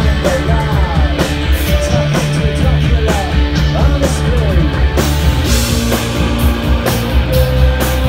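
Rock music at full level: a band with electric guitars, bass and drums playing. Sliding notes recur throughout over a steady bass line.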